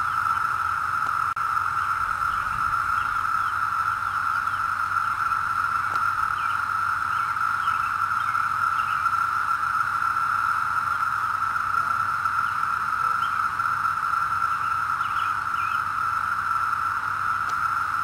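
Massed chorus of 17-year periodical cicadas (Brood XIII) calling from the trees: one steady, unbroken shrill drone at a single pitch, with faint short chirps scattered above it.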